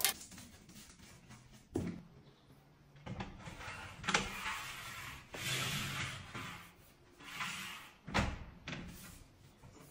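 Porcelain-tile sliding cabinet door being set into its metal track and slid: a few sharp knocks as the panel bumps and seats, about a second and a half in, around four seconds and near eight seconds, with scraping slides in between.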